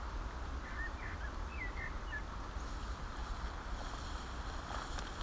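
Steady low rumble of wind on the microphone beside a small river, with a few short bird chirps about a second in. Near the end, faint rustling and splashing as a hooked asp is lifted from the water.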